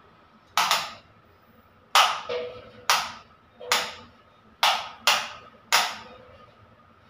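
About eight sharp clicks or taps at uneven spacing, each dying away quickly with a short faint ring.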